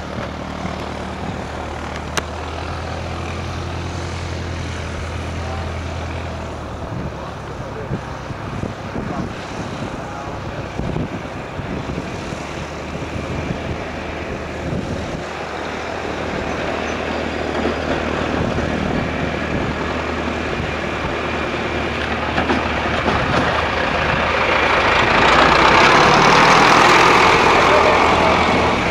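A steady low engine drone for the first several seconds, then a rushing noise that swells over the last several seconds and peaks shortly before the end.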